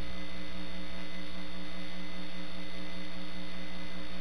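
Steady electrical hum with hiss, several fixed tones held without change, and no other sound.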